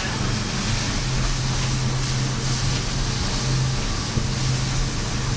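Twin Mercury outboard engines on a Beneteau Antares 9 running at a steady speed under way, a constant low hum, heard from inside the cabin with a steady rush of water and wind past the hull.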